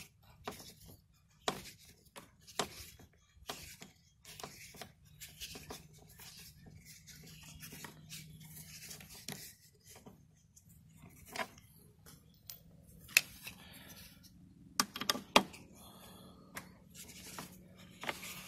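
Irregular small clicks and scrapes of a hex-bit driver turning bolts out of a push mower's plastic rear housing, with the loosened bolts handled by fingers. The sharpest clicks come about two-thirds of the way in.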